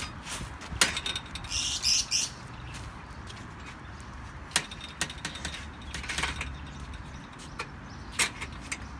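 Small pet birds chirping, with scattered knocks and clicks.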